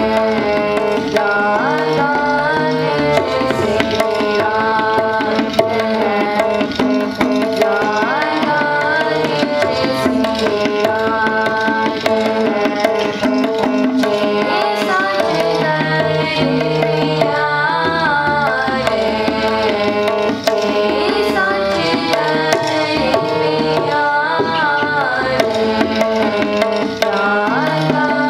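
Kirtan: girls singing a Sikh hymn with harmonium accompaniment, the harmonium's reeds holding steady tones under the voice, while a tabla pair keeps a quick running rhythm of strokes.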